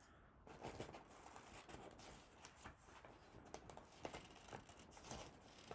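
Scissors cutting paper, heard faintly: a few scattered snips with light paper rustling.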